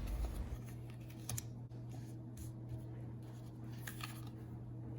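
Playing cards being handled: a few faint, scattered clicks and light snaps of card stock over a steady low hum.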